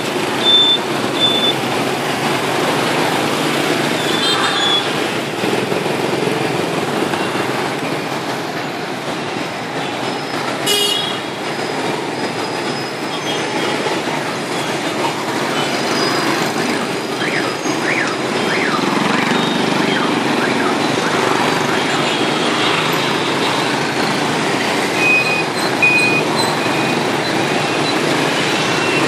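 Dense city traffic at a busy intersection, mostly motorbikes and scooters with some cars running past without a break. Short horn beeps sound now and then, a few near the start and again near the end.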